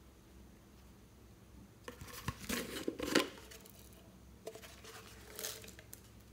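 Slime being worked by hand: two short bursts of noise, the first about two seconds in and the second about four and a half seconds in.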